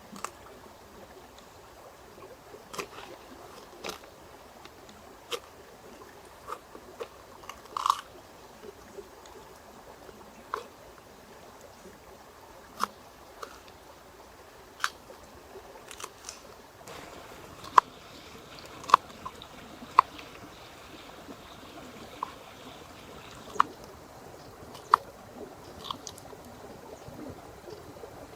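Irregular sharp clicks and crisp taps, a second or more apart, over a faint steady hiss; the loudest come in the second half.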